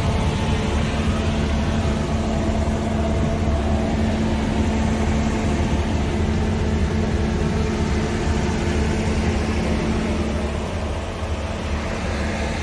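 Scania R tractor unit's diesel engine idling steadily, a low even hum heard from inside the truck's cab.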